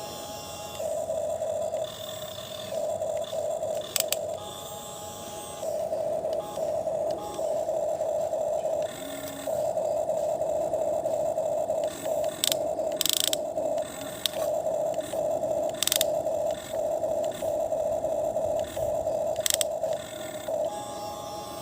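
Small electric motor of a toy excavator whirring in short on-and-off spells as its arm and bucket are worked, with a few sharp clicks.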